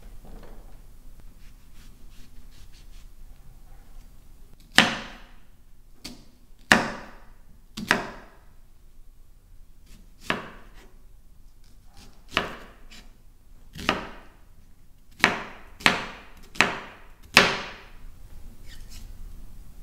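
A knife chopping down hard onto a wooden cutting board: about ten single strikes at uneven intervals, coming closer together near the end.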